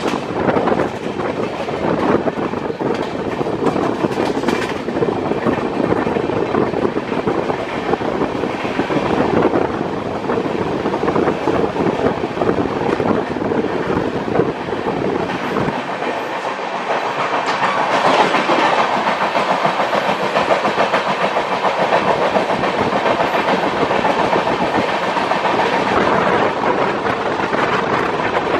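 Passenger trains running at speed on parallel tracks, heard from the open door of a moving coach: wheels clicking over rail joints in a clickety-clack rhythm under a steady rumble, a little louder in the last third.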